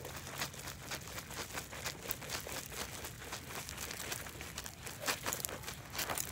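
Leopard shark flopping on loose gravel: the gravel crunches and rattles in quick, irregular clicks as the fish thrashes.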